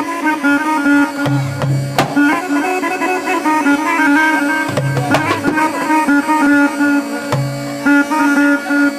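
Egyptian folk wedding music: a melody played over a steady held drone, with hand-drum strikes.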